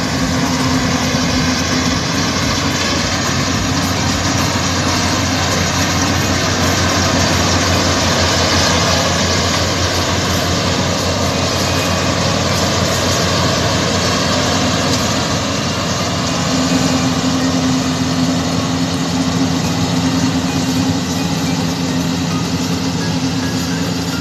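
Yanmar rice combine harvester's diesel engine and its cutting and threshing machinery running steadily.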